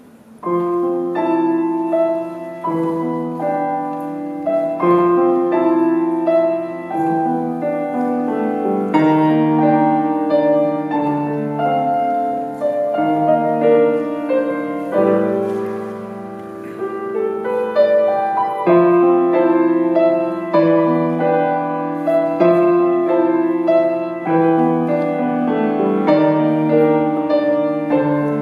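Grand piano playing a flowing classical piece in repeating broken chords, starting about half a second in after a pause. It eases off briefly about halfway through, then carries on.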